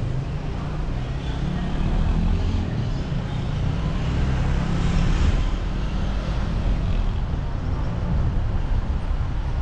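Steady road-vehicle rumble with traffic noise.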